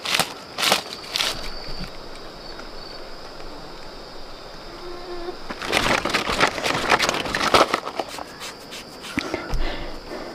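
Bursts of rustling and crackling, a few sharp ones in the first second and a denser run from about six to eight seconds in. Under them runs a steady high-pitched insect drone, such as crickets.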